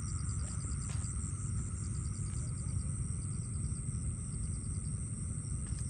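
Night insects calling: a steady high trill with a quick repeated chirp over it, about five chirps a second, over a constant low rumble. There is a faint click about a second in.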